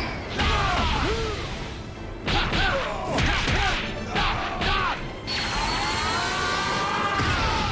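Animated fight sound effects: a string of sudden hits and whooshes, then, about five seconds in, a long sustained effect that rises and falls in pitch with a steady high whine over it, over battle music.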